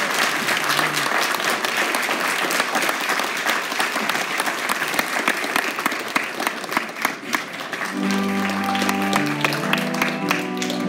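Congregation applauding with steady clapping. About eight seconds in, the clapping thins as an organ begins sustained chords.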